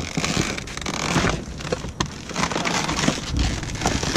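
Dumpster trash being dug through by hand: plastic lids, bags and cardboard rustling and crinkling, with many short sharp clicks and knocks.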